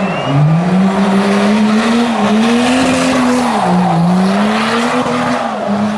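Drift car's engine held at high revs, its note dipping and climbing as the throttle is worked, with tyres squealing continuously as the car slides sideways.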